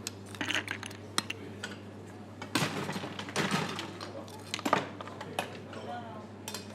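A bartender mixing a cocktail: glassware, ice and bar tools clink and tap irregularly, with a few short rattling bursts. Faint pub chatter runs underneath.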